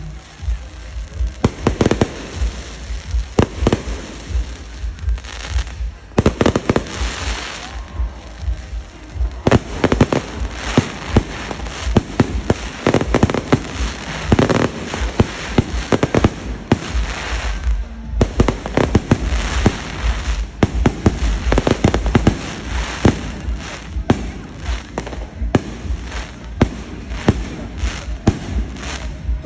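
Fireworks display: a continuous barrage of bangs and crackling, many bursts a second, with brief lulls about six seconds in and again about two-thirds of the way through.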